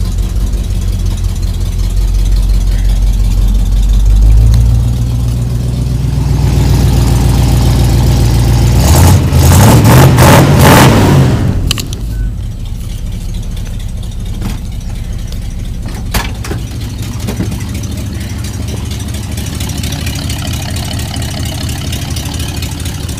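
The AMC 360 V8 of a 1979 Jeep J10 with dual straight pipes running at idle, then revved. The pitch climbs about four seconds in and peaks in a loud rev around the middle. About halfway through the sound drops sharply to a quieter, steady engine note broken by a few sharp clicks.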